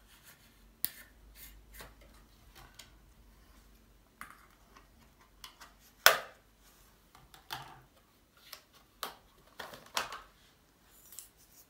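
Small metal tools and their cardboard backing card being handled: scattered clicks, taps and rustles, with one sharper knock about six seconds in.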